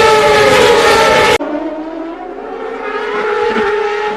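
Open-wheel IndyCar race car engines running at high revs, a steady high-pitched whine with several tones at once. About a second and a half in, the sound cuts abruptly to a quieter, duller recording of cars still running at speed.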